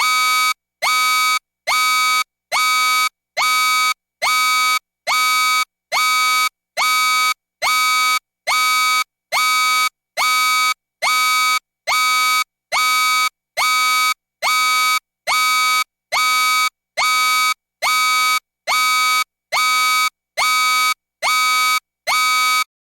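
Loud electronic warning beep repeating steadily, a little more than one beep a second, each beep about half a second long with a short silent gap between. Each beep starts with a slight upward slide in pitch, and the beeping stops just before the end.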